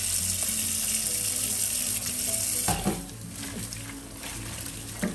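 Kitchen tap running hard into the sink while dishes are washed, shut off suddenly about halfway through with a clunk; a few small knocks of dishes follow, one sharper near the end. Background music underneath.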